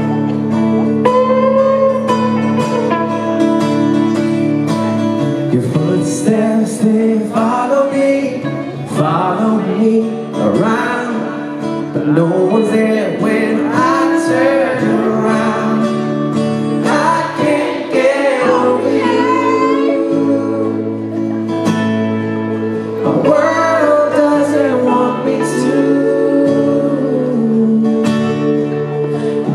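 Live pop song in a stripped-back acoustic arrangement: a man singing into a microphone over guitar. Held guitar chords carry the opening seconds, and the voice comes in strongly about six seconds in.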